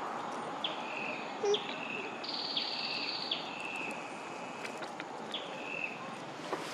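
Outdoor forest ambience: a steady hiss with a bird repeating a short, high chirp that dips in pitch, about seven times, plus a few faint clicks.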